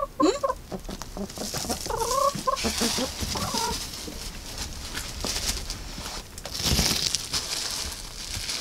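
Several hens clucking in short calls over the first few seconds, then rustling and scuffling in the straw of the coop with a louder scuff near the end.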